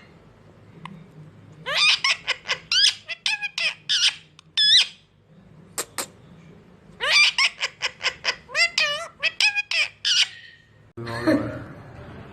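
Pet parrot giving two runs of quick, short, high-pitched squawking calls, each run about three seconds long, the second starting about seven seconds in.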